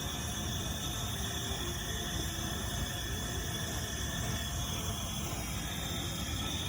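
Steady low rumbling noise, typical of a high-pressure propane burner running under a crawfish boil pot.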